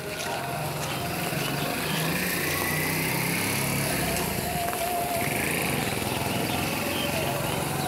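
Small engine of a CNG auto-rickshaw running steadily as it drives past close by, growing louder about two seconds in, with a hiss of tyres on the wet road.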